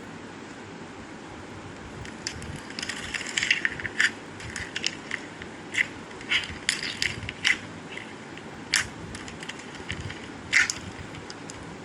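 Slime being squeezed and worked by hand, giving irregular crackling pops and clicks that start about two seconds in, over a steady faint hiss.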